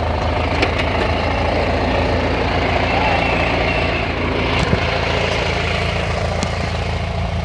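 Murray riding lawn mower's small engine running steadily, with a few sharp ticks over it.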